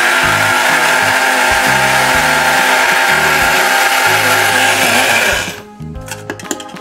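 ProfiCook electric blade grinder running at full speed with its lid pressed down, grinding sugar into powder; the motor cuts off suddenly about five and a half seconds in. Background music with a bass line plays underneath.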